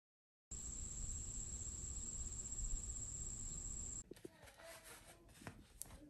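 Alarm clock ringing: a steady, high-pitched bell trill that starts about half a second in and cuts off suddenly about four seconds in, followed by faint room sound with small clicks and rustles.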